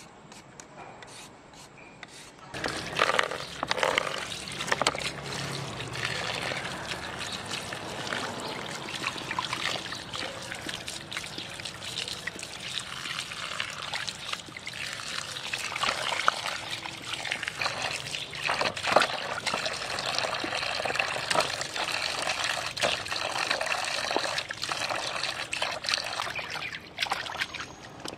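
Hands washing halved green papaya in a plastic basin of water, splashing and rubbing, with water dripping; later chilies, garlic and carrot are swished in the water. Before that, for about the first two seconds, a peeler scrapes faintly on a carrot.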